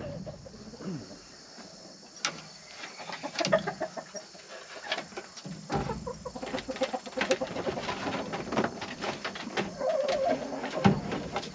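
Chickens clucking in short calls, with scattered light knocks and scrapes of wood as a small wooden box is slid across the coop's wire floor.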